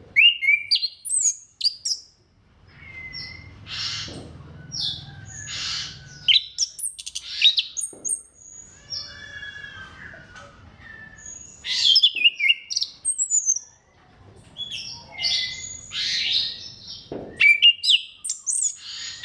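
Orange-headed thrush singing a long, varied song of rapid whistled and chattering phrases separated by short pauses, with a fast rattling run of repeated notes about nine seconds in.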